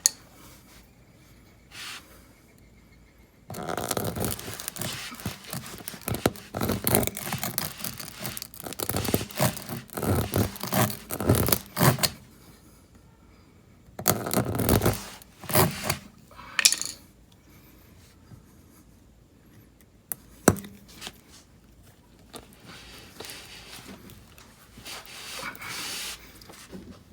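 Tire plug insertion tool being forced through the puncture in a run-flat tire's rubber with a sticky plug: rough scraping and rubbing in irregular bursts, with a sharp click about twenty seconds in.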